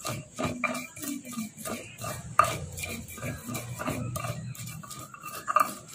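Stone pestle grinding and scraping green chili sambal in a stone mortar (cobek), with irregular grinding strokes and occasional sharper knocks of stone on stone, two of them louder.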